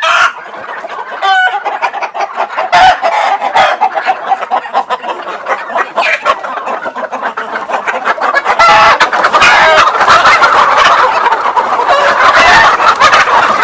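A flock of native village chickens clucking and squawking in their coop, the calls growing louder and busier about eight or nine seconds in.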